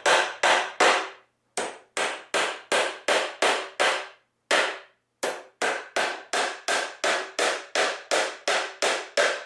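Hammer driving nails into a white pine toolbox: a steady run of sharp blows, about two and a half a second, with two short breaks, one about a second in and one around the middle.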